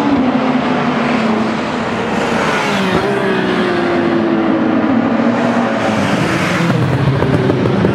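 Seat Leon Supercopa race cars' turbocharged four-cylinder engines running at racing speed, the engine pitch sliding down and back up as the cars pass along the track.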